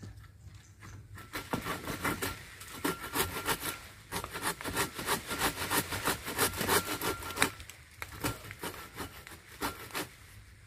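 Hand saw cutting through a storm-split jackfruit tree branch. It runs in quick back-and-forth strokes from about a second in, dropping to a few scattered strokes after about seven and a half seconds.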